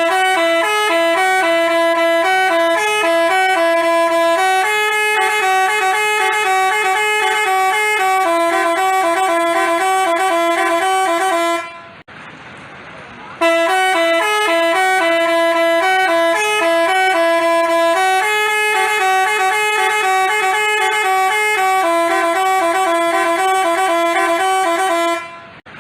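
Basuri telolet horn, the multi-tone musical bus horn, playing a stepping melody for about twelve seconds. After a short pause it plays the same tune again.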